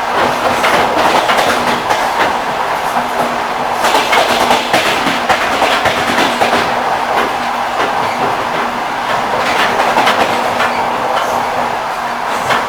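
Railway carriage wheels clacking over rail joints, with clusters of clicks over a continuous rolling rumble of a train under way and a faint steady hum.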